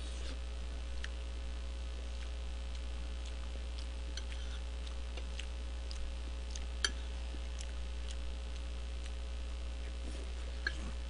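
Steady low electrical hum, with scattered light clicks of a metal spoon and fork against a plate of jjajangmyeon; the sharpest click comes a little before the middle and another near the end.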